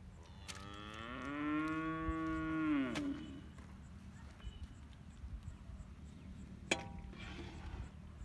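A cow mooing once: one long call, rising at the start, held steady and falling away at the end.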